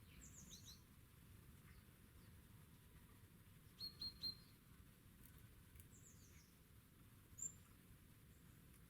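Small songbirds calling faintly: a quick run of short descending notes at the start, three sharp high chirps about four seconds in, more descending notes about six seconds in, and a single chirp near the end.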